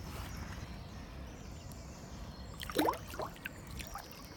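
Outdoor lakeside ambience: a steady low rumble of wind and background noise, with one short, sharp sound with a quick pitch glide about three seconds in.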